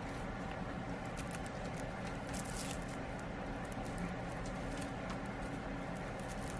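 Guinea pig gnawing and nibbling at a woven Oxbow Timothy hay tunnel: irregular small clicks and crackles, with a slightly louder scratchy rustle about two and a half seconds in, over a steady low hum.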